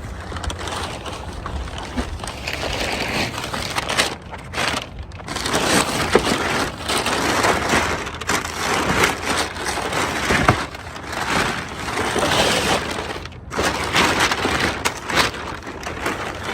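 A shipping box is being torn open and a replacement Range Rover grille pulled out of its packing. The cardboard and plastic wrap make irregular crackling and rustling, with sharp cracks and snaps throughout and a brief lull about four seconds in.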